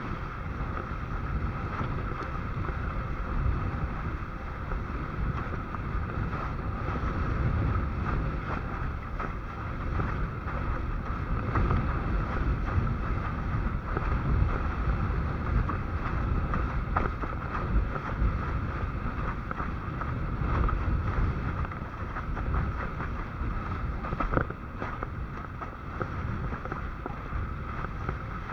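Wind buffeting the microphone with water rushing past while windsurfing: a steady, rumbling noise that runs without a break.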